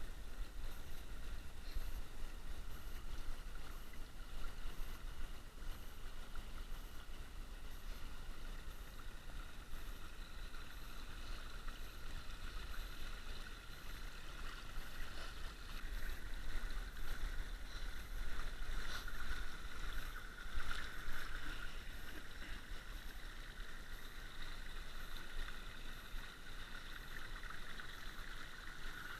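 Shallow creek water trickling and gurgling over shale rocks in a steady, even babble.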